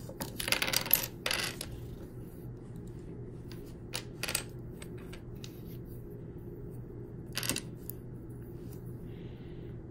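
Notched bamboo sticks of a six-piece burr puzzle clicking against each other and being set down on a tabletop. There is a quick clatter of clicks in the first two seconds, two more knocks about four seconds in and one more near seven and a half seconds.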